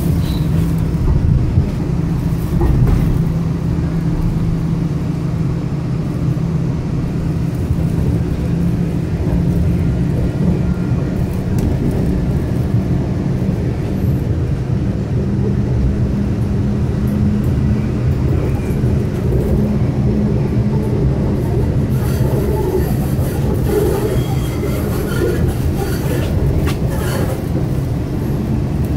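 Siemens S70 light rail car running at speed, heard from inside the car: a steady low rumble of wheels on rail under a steady motor hum that rises slightly in pitch about halfway through. A few light clicks and rattles come near the end.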